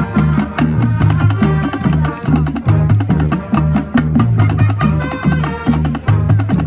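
Marching band playing, with the percussion section keeping a steady, driving beat of sharp strikes over a repeating bass line and sustained horn notes.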